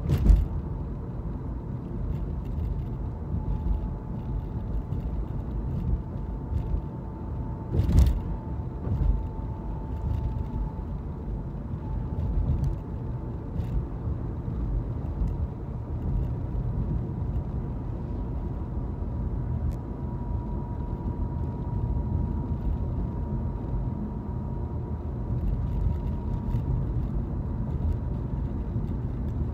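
Moving car heard from inside the cabin: a steady low rumble of tyres and engine at road speed, with a faint steady whine. Two short thumps stand out, one right at the start and a louder one about eight seconds in.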